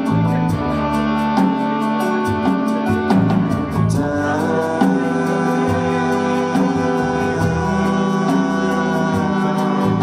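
Live band playing: fiddle, strummed acoustic guitar, upright bass and drums, over a steady drum beat.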